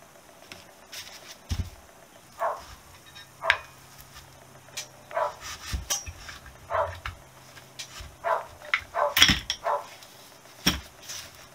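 Metal clinks and knocks of drum brake shoes, return springs and the brake plate being worked loose and lifted out of a motorcycle's front brake hub: a string of short sharp taps, busiest about nine seconds in.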